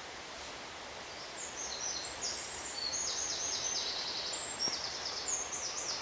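A songbird singing a long run of rapid, high notes and trills, starting about a second and a half in, over a steady rushing background noise.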